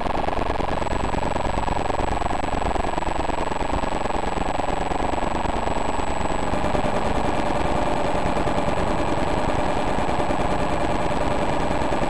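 Remote-control signals made audible by a light-to-sound device, several playing at once: a dense, steady buzz of rapid pulses. A thin high tone runs from about a second in until about halfway.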